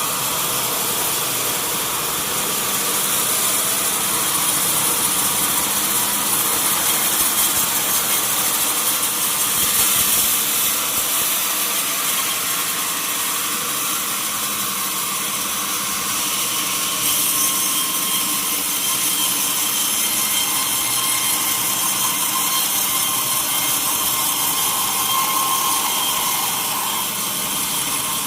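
Sawmill saw cutting steadily through a long mahogany log: a continuous hissing cut with a faint whine under it. The sound shifts slightly about halfway through.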